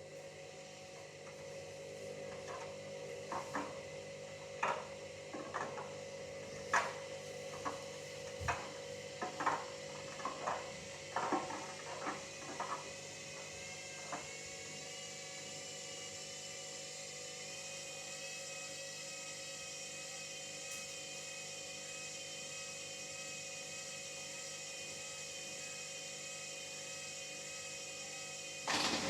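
Hoover Dynamic Next washing machine: a string of irregular knocks from the drum during its first half, then a motor whine that rises slowly in pitch as the drum speeds up towards the spin.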